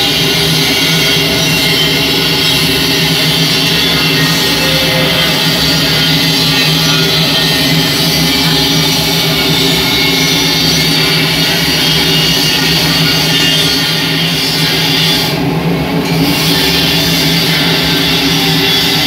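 Industrial burner firing into a rotary dryer drum: a steady, loud roar of flame and blower fan with a constant low hum underneath. The high hiss dips briefly about fifteen seconds in.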